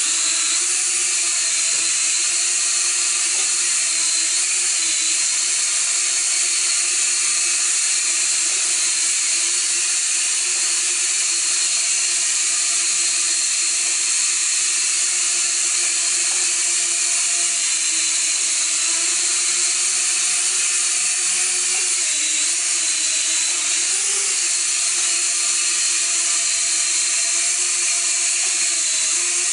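Eachine H8C mini quadcopter hovering, its four small motors and propellers giving a steady high buzzing whine over a hiss. The pitch wavers briefly a few times as the throttle is adjusted.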